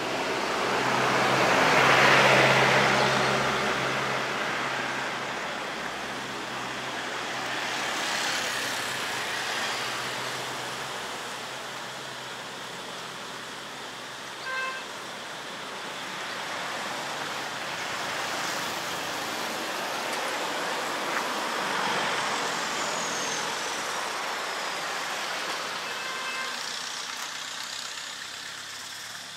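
Road traffic: vehicles passing one after another, the loudest going by about two seconds in, with a short beep about halfway through.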